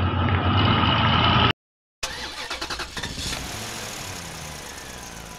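Fuso dump truck's diesel engine running steadily, cut off abruptly about a second and a half in. After a half-second gap a different, clearer engine sound starts with a quick rattle and then fades away.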